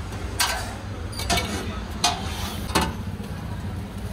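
Four sharp metallic clinks about a second apart, from a metal spoon knocking against steel utensils and a flat steel griddle while chutney is spread on vada pav buns, over a steady low background hum.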